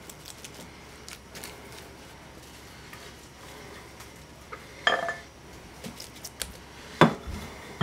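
Spatula scooping moist stuffing and knocking against the crock pot's glazed insert: a few soft taps, a clink about five seconds in and a sharp knock about seven seconds in.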